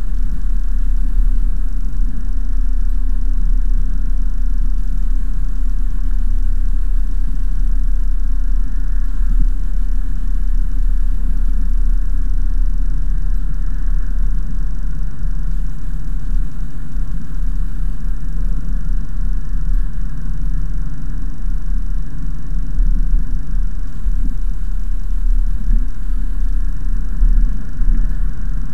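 Mercedes-Benz C-Class coupe driving on a wet road, heard from inside the cabin: a steady, loud low rumble of engine and road noise.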